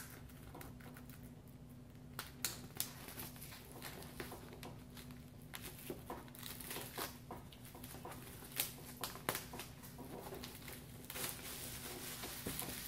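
Plastic shrink wrap being picked at and peeled off a cardboard record box set: scattered small crackles and ticks, turning into a denser crinkling about a second before the end as the film comes away.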